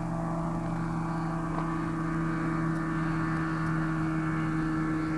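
Engine of a small propeller aircraft flying low, a steady hum that holds one pitch.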